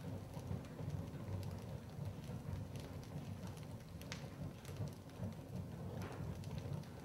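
Fire burning: a steady low rumble of flames with scattered crackles and pops.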